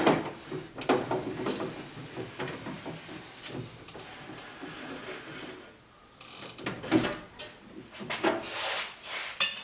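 Irregular metallic clicks, rattles and knocks of hand tools and parts being handled inside a pickup truck's door, with a quieter pause past the middle and a cluster of sharper knocks near the end.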